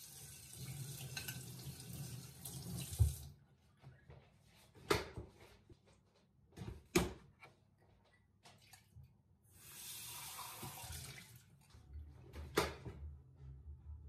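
Kitchen tap running into a sink while dishes are rinsed: two spells of running water, each a couple of seconds long, with sharp knocks of ceramic bowls and dishes set down or bumped together in between.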